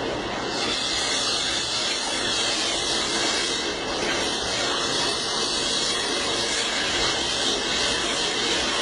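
Steady hissing rush of water running from a wall tap.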